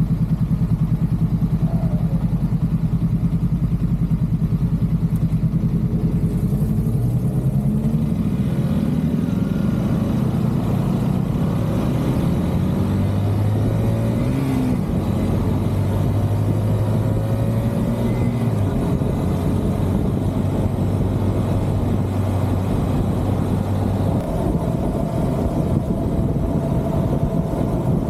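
KTM Duke 200 single-cylinder engine running, its revs rising and falling for a while, then holding steady. A faint whine that the owner cannot account for is under the engine note; a shop found nothing wrong.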